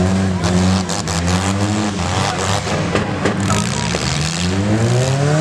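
Demolition derby cars' engines revving up and down, several at once, with sharp crunching impacts of cars hitting each other, mostly in the first half.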